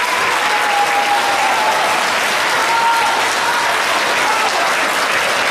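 Concert-hall audience applauding steadily: a dense, even clapping from a large crowd.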